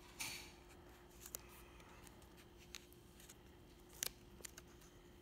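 Faint paper handling: printed card paper of a kaleidocycle being folded and creased by hand, a short rustle near the start and a few small clicks later, over a faint steady hum.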